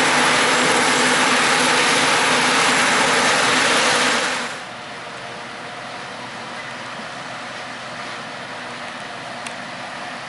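Heavy diesel farm machinery running loud and steady, then dropping sharply to a quieter steady engine sound about four seconds in.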